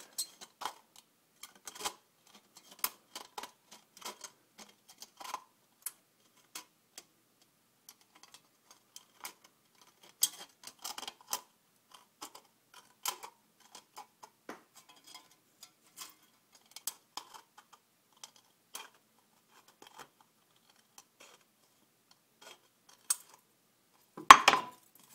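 Scissors snipping through the thin aluminium wall of a drink can: irregular, crisp small clicks, one after another, as a rough-cut edge is trimmed down to a marked line. A louder metal sound, about half a second long, comes near the end.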